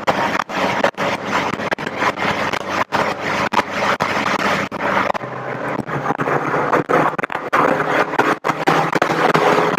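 Inside the car: a Rover Metro's 1.8 K-series VVC engine pulling on the road, with heavy road and wind noise and frequent brief dropouts from a poor external mic. About five seconds in the hiss eases, then the engine note climbs as it accelerates again.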